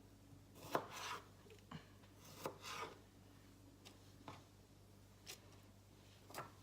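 Kitchen knife cutting food on a cutting board: a handful of scattered knocks of the blade on the board, a few with a short scrape.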